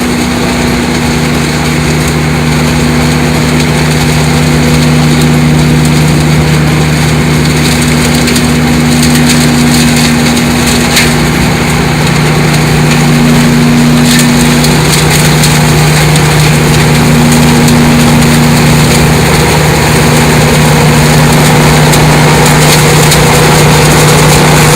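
MultiOne 8.4 mini loader's engine and leaf vacuum attachment running steadily at high output: a loud constant hum under a dense rushing hiss of air and debris.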